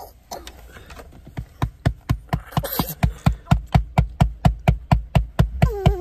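A hand patting a young child's back in rapid, firm taps, about four or five a second and getting louder after the first second or so, to clear a coughing fit. Near the end the child lets out a held 'ahh' that wobbles with each tap.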